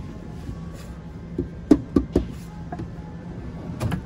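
A white chest of drawers' drawer being handled and pushed shut: three sharp knocks about two seconds in, a lighter one just before them, and a couple more near the end.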